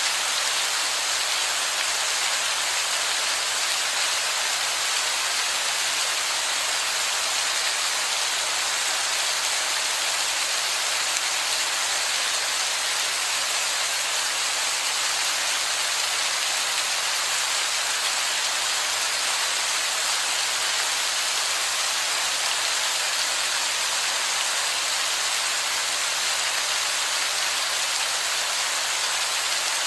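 Water pouring and dripping onto wet rock: a steady, even hiss with no breaks, like heavy rain.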